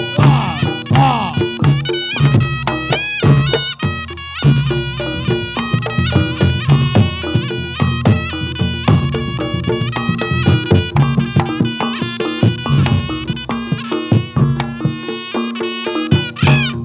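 Reog Ponorogo gamelan music accompanying jathilan dance: a slompret (Javanese shawm) plays a melody with a nasal, reedy tone over regular kendang drum strokes and a steady held tone.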